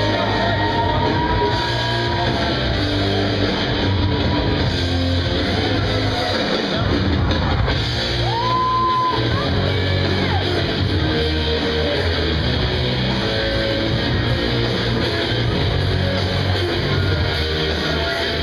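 Rock walkout music with electric guitar and singing, played loud in a large hall as a fighter enters the cage.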